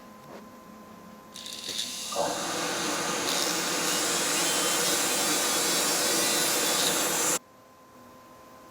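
A dental laboratory machine starts with a high hiss, runs loud and steady for about five seconds, then stops suddenly.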